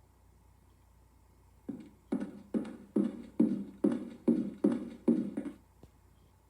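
A run of about nine evenly spaced percussive hits, a little over two a second, starting about two seconds in and stopping short about five and a half seconds in.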